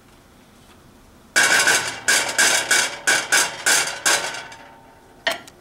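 Wooden spoon knocking against the inside of a stainless steel pot while working a pat of butter around the bottom: about three quick strikes a second for some three seconds, starting over a second in, with the metal ringing briefly at each strike, and one more knock near the end.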